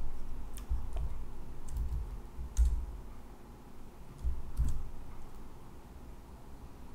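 Computer mouse and keyboard clicks: about half a dozen separate, sharp clicks spread irregularly over several seconds as code is selected, copied and the editor is opened.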